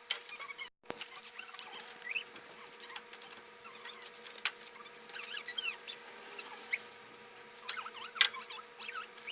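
Many short, high chirps and squeaks scattered throughout, with a few sharp clicks, the loudest about eight seconds in.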